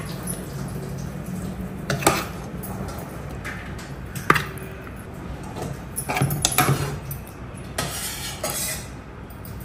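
A metal spoon clinking and scraping against a metal pot as chicken curry is spooned into it, with a few separate sharp clinks and a steady low hum underneath.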